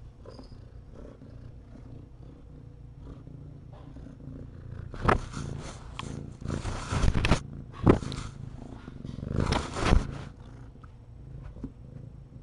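An adult cat right up against the microphone, purring and brushing past it, heard as four loud, rough bursts between about five and ten seconds in over a low steady background.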